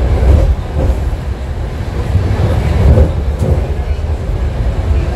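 BART legacy 1972 Rohr A-car running between stations, heard from inside the car: a loud, heavy low rumble that swells about half a second in and again around three seconds.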